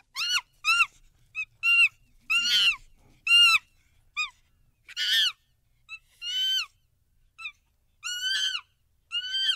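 A chimpanzee calling: a dozen or so short, high-pitched cries at uneven intervals, several arching up and then down in pitch.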